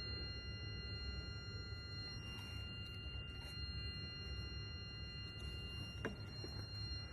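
Volvo XC60 D4 diesel engine running steadily: a low rumble with a strange high-pitched whine of several steady tones over it, whose source the owner cannot place. A single sharp click about six seconds in.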